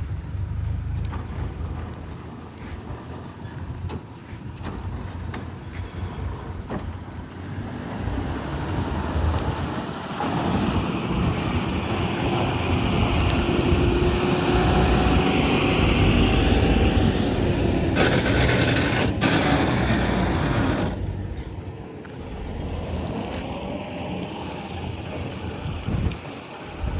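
Harvesting machine running steadily, with wind buffeting the microphone. It grows louder about a third of the way in, with a faint steady whine, then eases off about three-quarters through.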